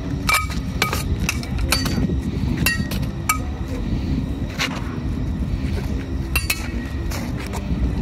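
Swords and a frying pan used as a buckler clashing in sparring: a quick irregular series of about a dozen sharp metallic clanks, some ringing briefly.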